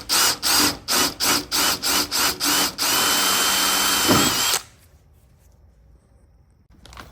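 Electric drill boring into the Beetle's sheet steel, first in short trigger pulses about three a second, then a continuous run of almost two seconds with a steady whine that cuts off suddenly.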